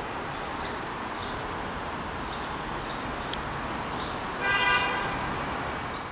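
Steady street and traffic background noise, with one short car horn toot about four and a half seconds in.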